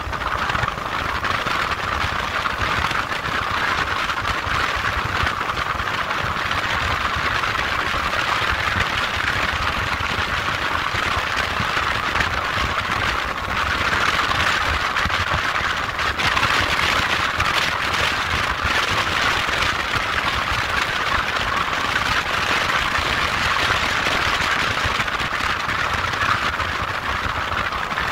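Motorcycle running steadily on the move: a low engine rumble under a constant rushing noise, with no revving or gear changes.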